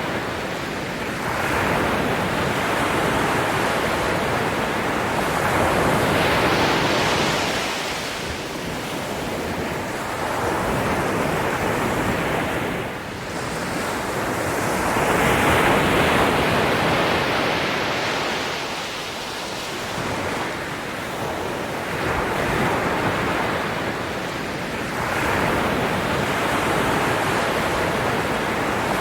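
Ocean waves breaking and washing on a shore in continuous surf, swelling and ebbing every few seconds.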